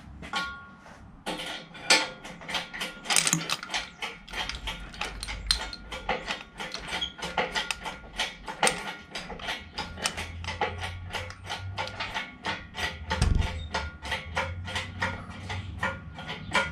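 Rapid, irregular metal ratcheting clicks, several a second, from a ratchet mechanism worked to lift the old 302 V8 out of the engine bay, with a deeper thump about thirteen seconds in.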